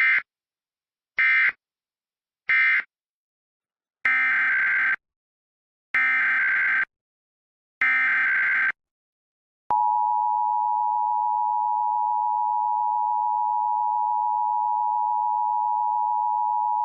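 Emergency Alert System data tones: three short bursts of digital screech, the end-of-message code closing one alert, then three longer one-second bursts, the header of the next alert. They are followed by a steady attention tone near 1 kHz held for about eight seconds.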